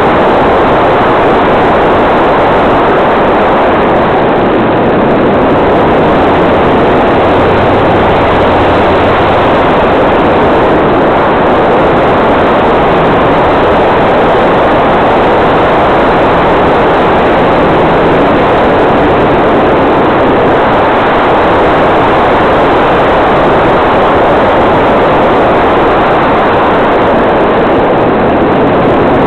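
Steady, loud running noise of a radio-controlled Piper L-4 model airplane's motor and propeller in cruising flight, mixed with airflow rushing over the onboard camera's microphone.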